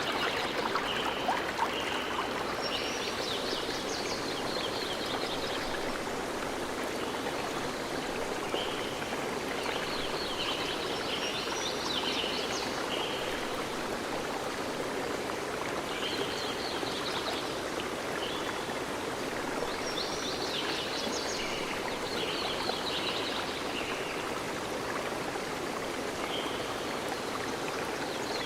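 Stream of water running steadily, with a bird singing short, repeated phrases of high notes and trills every few seconds.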